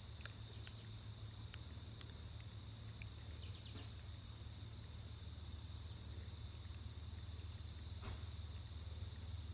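Quiet outdoor background: a steady low hum and a steady high-pitched insect drone, with faint, scattered taps of fingers typing on a tablet's touchscreen keyboard.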